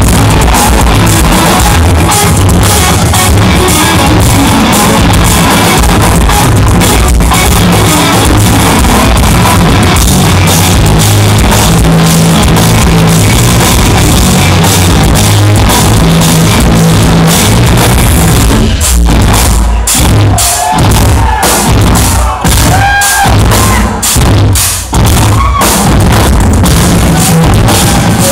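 Instrumental progressive metal played live by a band on eight-string electric guitars, bass and drums, loud and overloaded as heard from the crowd. About two-thirds of the way in the band plays a run of stop-start hits with short gaps between them, and the full sound returns near the end.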